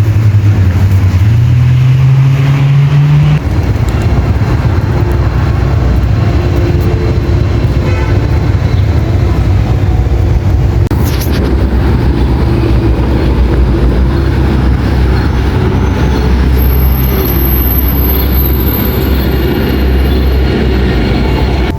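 A heavy vehicle engine running close by in city traffic, as a loud, steady low drone. Its pitch steps up about two seconds in, then holds.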